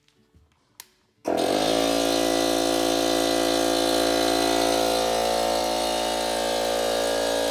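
DeWalt 60V Flexvolt cordless 2.5-gallon air compressor: a click, then about a second in its brushless motor and oil-free pump start abruptly and run steadily at full speed.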